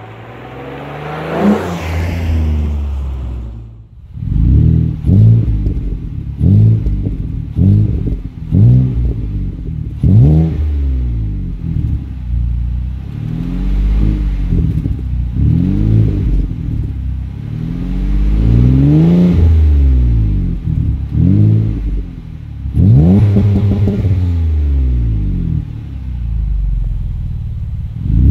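2014 Ford Taurus through a Magnaflow cat-back exhaust. First the car accelerates in a drive-by, its note rising and then fading. After a short break, the car is parked and the engine is revved over and over in short blips, with a couple of longer held revs past the middle.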